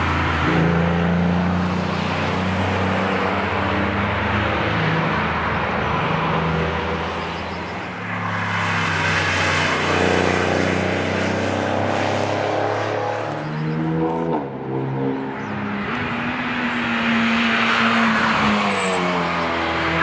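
Cars passing at speed on a race track. A Porsche 911's flat-six engine runs hard, its note rising as it accelerates away. About two-thirds of the way in, a different car's engine takes over, rising and falling with the revs.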